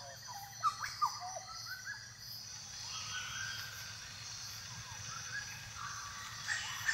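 Birds calling, with a run of short sliding chirps in the first two seconds, over a steady high-pitched background of natural ambience.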